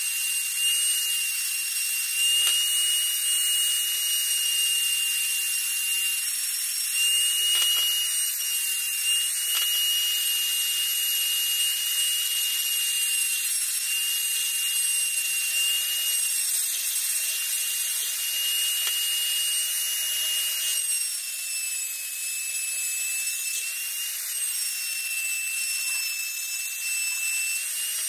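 Handheld rotary tool with a small grinding stone running at high speed: a steady high-pitched whine whose pitch wavers slightly as the stone is worked against the steel jaws of needle-nose pliers.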